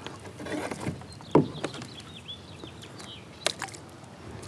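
Water splashing and dripping from a landing net lifted out of the water as a released bass swims off. There is a single loud knock about a second and a half in, then a few lighter clicks of gear in a kayak.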